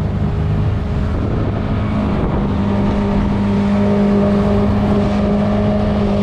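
Evinrude 115 outboard motor running at speed, a steady drone over the rush of water and wind; its pitch rises slightly in the first two seconds, then holds.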